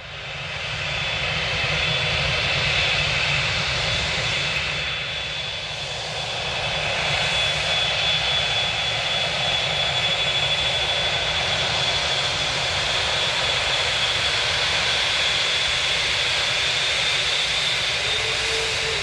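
Airbus A380's four turbofan engines running at takeoff power: a loud, steady jet noise with a deep rumble underneath and a high, steady fan whine on top.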